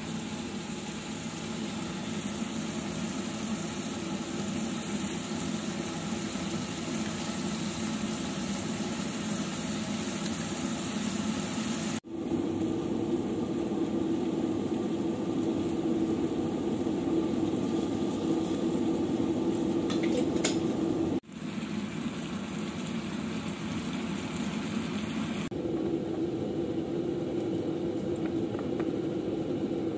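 Bolognese mince frying in a pan on a gas stove: a steady sizzle with a low hum underneath. It changes abruptly a few times at edit cuts, and near the end there are a few light scrapes as the sauce is scraped out of the pan.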